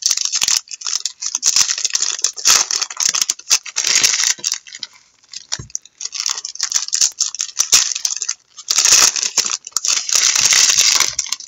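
Foil trading card pack wrappers crinkling and tearing as packs are ripped open, with cards being handled and shuffled. It comes in several bursts of scratchy crackle with a quieter pause midway.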